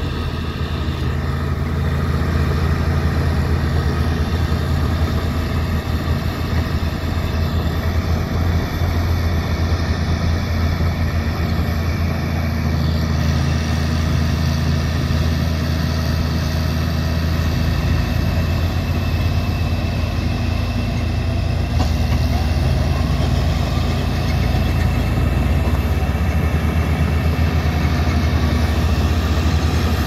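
Heavy diesel engines running steadily under load, a crawler bulldozer pushing a loaded dump truck that is stuck in mud: a continuous low, even drone.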